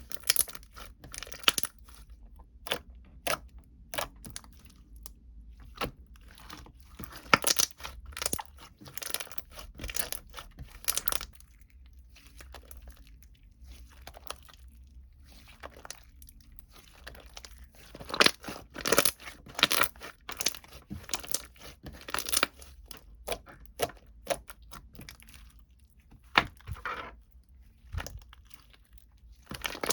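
Close crinkling, crunching and tearing noises in irregular bursts, with short quiet gaps between them.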